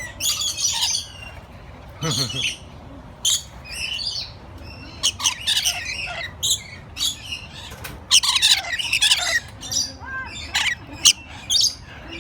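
Parrots squawking, with short harsh calls following one another throughout.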